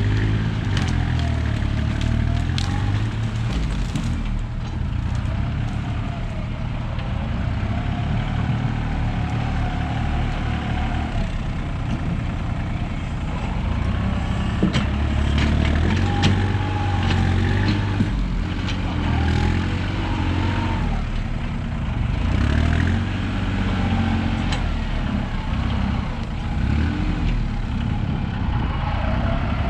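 A heavy engine-driven machine running steadily with a low rumble and a wavering whine, with scattered clanks and knocks.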